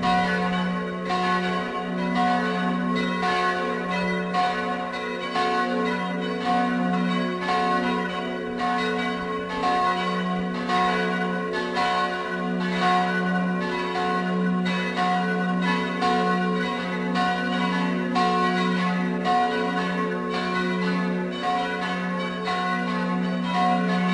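Full peal of church bells: all the tower's swinging bells ringing together, strikes following one another several times a second in a shifting overlapping pattern over a steady, sustained hum.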